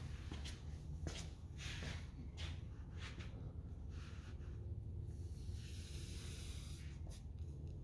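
Hands sliding over and smoothing down a large sheet of material laid flat on a table, giving repeated soft swishes and rustles, with a longer hiss about five seconds in, over a steady low hum.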